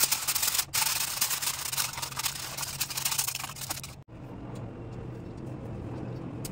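Aluminium foil crinkling as it is pressed and folded into a baking pan, a dense crackle for about four seconds. It cuts off suddenly, leaving a low steady hum with a few faint ticks.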